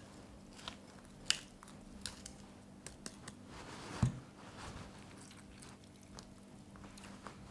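Faint clicks and squishing as a lemon half is squeezed by hand over fried chicken cutlets, with a soft knock about four seconds in.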